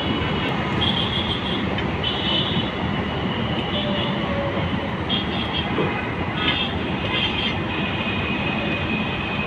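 A vehicle rolling on rails with a steady rumble, and short high-pitched wheel squeals coming again and again, several in a few seconds.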